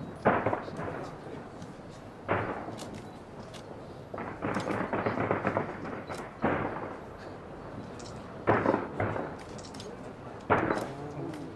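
Fireworks shells bursting in a string of booms, about one every two seconds, each trailing off slowly, with scattered crackles between them.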